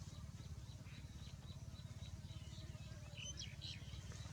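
Small birds chirping, with a couple of brighter calls about three seconds in, over a steady low rumble.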